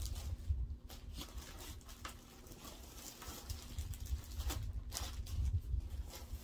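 Hands handling skeins of yarn: soft rustling with scattered light clicks, over low bumps close to the microphone.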